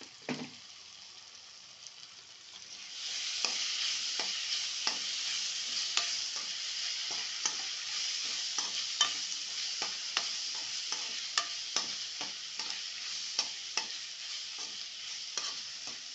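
Potato-onion masala frying in a pan: a steady sizzle, with a spatula stirring and scraping and tapping against the pan about once or twice a second. The sizzle becomes much louder about three seconds in.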